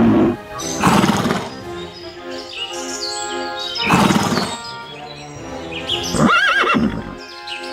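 Horse neighing three times, the last a warbling whinny, over steady background music.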